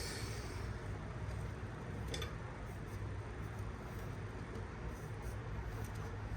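Quiet workbench room tone: a steady low hum, with one faint click about two seconds in.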